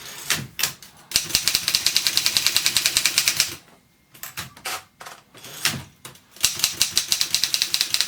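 Wartime Continental manual typewriter being typed on rapidly, in two runs of keystrokes at about ten strikes a second. There are a few single clunks of the mechanism between the runs.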